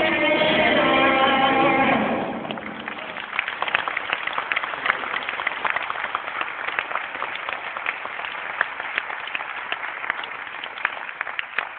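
A live band's last chord rings out and stops about two seconds in, then an audience applauds with many scattered hand claps.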